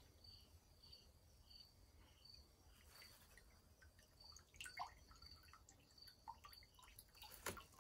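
Near silence: homemade pruno (toilet wine) dripping faintly from a cut plastic bag of fermented oranges into a stainless steel pot, a few soft drips, with a cricket chirping faintly about twice a second.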